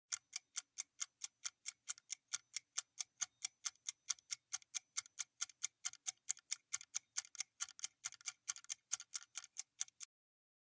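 Quiz countdown-timer sound effect: fast, even ticking at about five ticks a second, running while the timer counts down and stopping about ten seconds in as it reaches zero.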